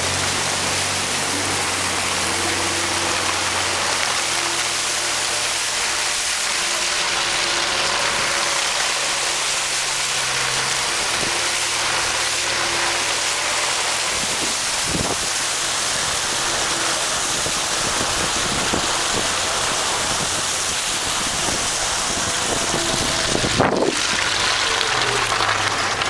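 Jeep Cherokee ploughing through deep water: a steady rush of splashing water thrown up by the wheels, with the engine running underneath and its pitch rising and falling. A single sharp thump near the end.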